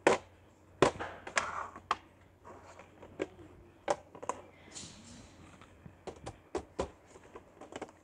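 Irregular sharp clicks and knocks of hard plastic as a four-drawer plastic storage unit is handled, set down on a tile floor and put back on the shelf.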